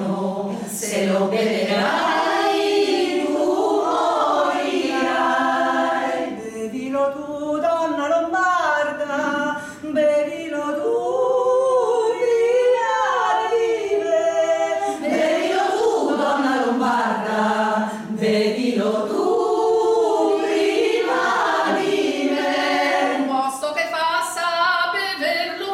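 Women's choir singing a cappella, several voices in harmony, in flowing phrases with a short breath about ten seconds in.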